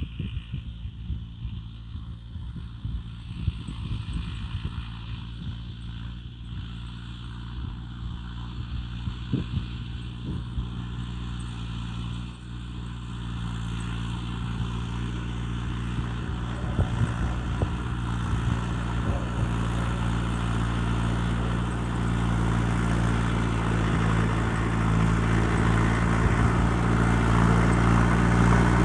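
A Mahindra Arjun 605 tractor's engine runs steadily while pulling a disc plough, growing steadily louder through the second half. There are scattered short clicks and knocks in the first half.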